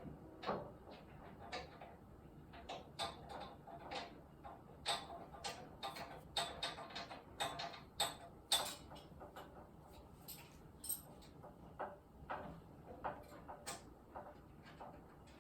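Irregular series of light clicks and knocks, several a second, with quieter gaps.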